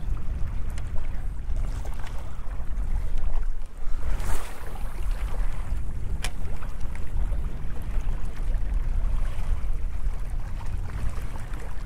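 Wind buffeting the microphone as a steady low rumble, with small waves washing on a rocky shore. A short swish comes about four seconds in and a single sharp click a couple of seconds later.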